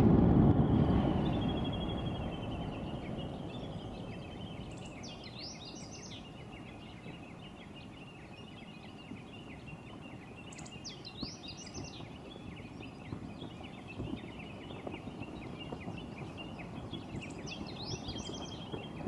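The tail of the deep boom from Popocatépetl's eruptive explosion, fading away over the first few seconds. Small birds chirp steadily over the background noise, with short flurries of higher calls now and then.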